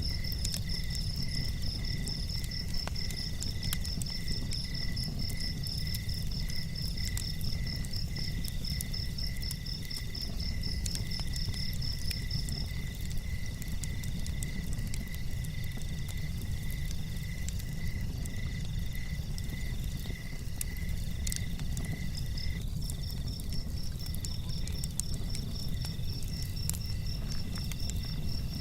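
Night insects, crickets among them, chirping in steady pulsing trills at several different pitches. The highest-pitched one stops about halfway through and starts again near the end, over a steady low rumble.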